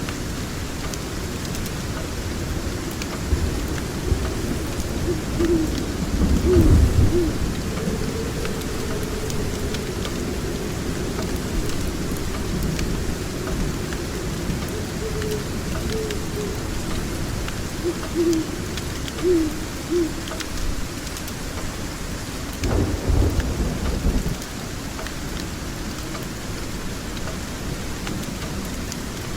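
Steady rain under a continuous low rumble of thunder, which swells into heavier rolls about six seconds in and again about twenty-three seconds in. Faint crackling of a wood fire runs throughout.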